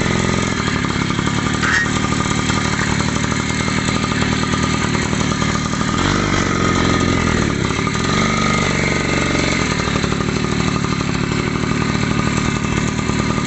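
Daelim motorcycle engine running, mostly steady at idle with its pitch shifting a couple of times partway through. The engine is freshly repaired and still breaking in.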